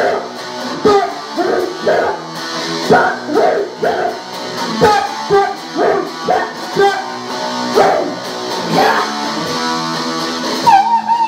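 Live guitar strummed in a steady rhythm, a chord struck about twice a second with the notes ringing on between strokes. A voice starts singing into a microphone near the end.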